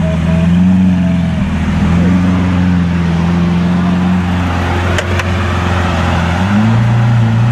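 Lamborghini Aventador's V12 engine running at low revs while the car creeps along, with its revs rising briefly near the end. A single sharp click sounds about five seconds in.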